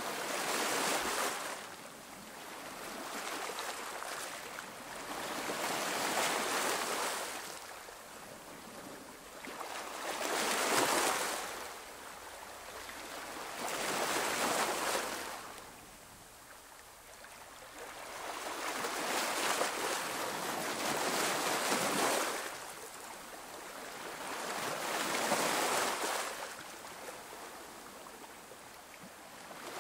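Sea waves washing in on a shore, each swell of surf rising and fading away every few seconds, with no music.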